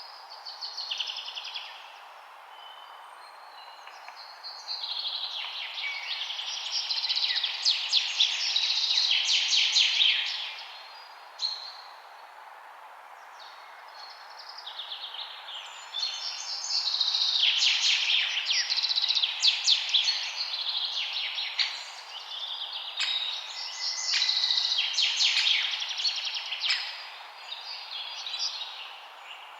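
Songbirds singing in overlapping bursts of rapid chirps and trills over a steady background hiss. The song eases off for a few seconds twice, then returns.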